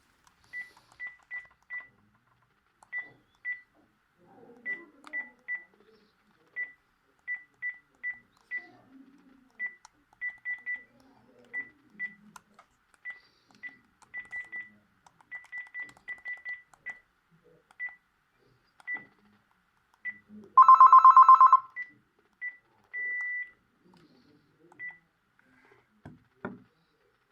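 Panasonic KX-PRS110 DECT cordless phone handset giving short high key beeps at an uneven pace, as its buttons are pressed. About three-quarters through, a loud trilling tone sounds for about a second, followed by a longer single beep.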